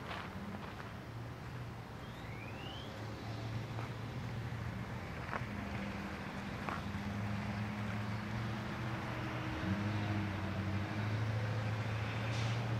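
A motor vehicle's engine running with a steady low hum that grows louder in the second half.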